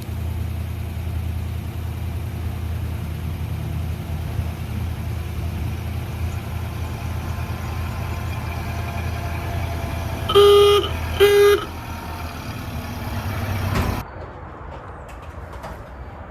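Ford Model A's four-cylinder engine running with a steady low rumble, its horn sounding two short, steady-pitched honks about ten seconds in. The engine sound cuts off suddenly about fourteen seconds in.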